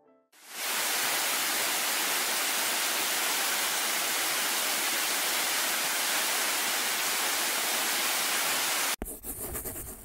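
Steady rushing of a waterfall, a dense even hiss that fades in about half a second in and cuts off abruptly near the end, giving way to a short rumbling logo sound.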